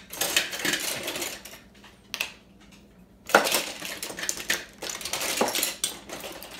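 Irregular clattering, clicking and scraping of kitchen items being handled: a baking powder can and its lid, and utensils being rummaged for a teaspoon. The sounds come in two main stretches with a single click between them.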